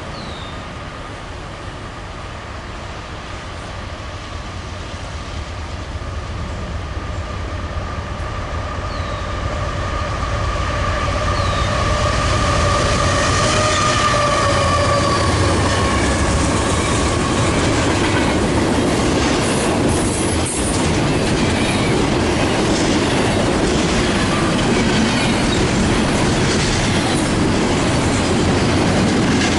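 A train approaching and passing close by. A low rumble with a faint whine builds over the first dozen seconds, then the rail cars roll past with steady clickety-clack of wheels over the rail joints.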